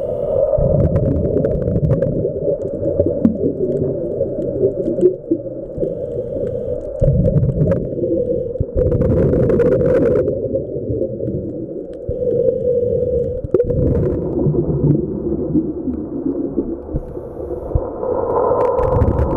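Muffled underwater sound through a camera housing: a scuba diver's regulator breathing and exhaled bubbles, a dull, noisy rumble that surges every several seconds with each breath, with a few faint clicks.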